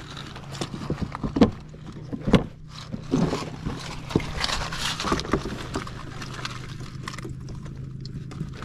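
Snowmobile's plastic side panel being pulled loose and swung open, with sharp plastic knocks and clatter, and footsteps shifting on wet river gravel, over a steady low hum.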